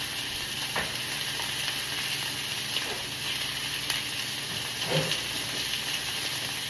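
Chicken pieces frying in a hot pan: a steady sizzle with scattered faint crackles.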